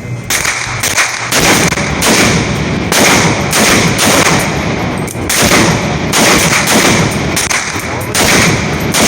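Gunshots fired in quick succession, each loud crack running into the next with short gaps between strings.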